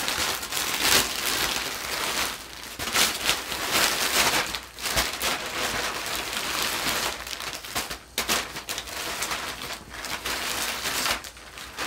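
A black plastic mailer bag and clothes packed in clear plastic bags rustling and crinkling as hands rummage inside and pull the items out, an irregular, continuous crackle that eases off briefly a few times.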